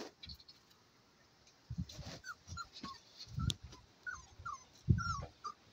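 Young Cocker Spaniel puppies at play, letting out a string of about eight short, high-pitched yips and squeaks in the second half, with a few low thumps among them.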